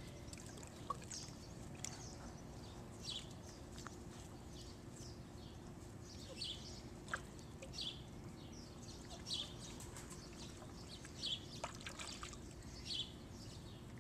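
Soft, irregular little splashes of shallow pool water, roughly one a second, as puppies step and paw at the water's edge.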